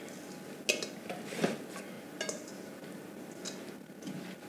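A stainless steel mixing bowl knocking and clinking lightly against a metal loaf pan a few times as meatloaf mixture is tipped out of it.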